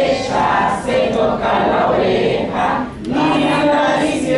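A large crowd of adults singing a Spanish children's action song together, many voices in unison in short phrases.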